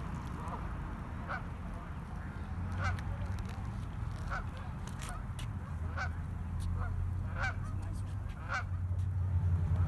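Waterfowl calling over and over, short calls about one a second, over a steady low rumble.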